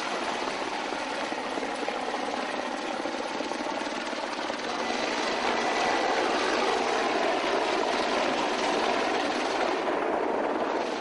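Military helicopter flying overhead, a steady rotor and engine noise that grows louder about halfway through.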